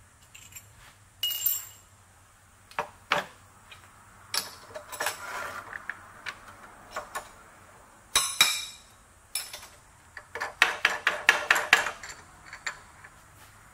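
Scattered metallic clinks and knocks of hand tools and the steel workpiece against a machine vise on a milling machine's rotary table. One clink about a second in rings briefly, and a quick run of clicks comes near the end.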